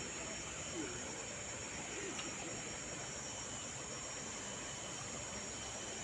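Steady tropical forest ambience: an even wash of noise under a constant high-pitched insect drone, with faint voices now and then.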